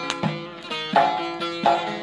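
Instrumental Kurdish folk music on a plucked string instrument: notes struck one after another, each ringing and fading before the next.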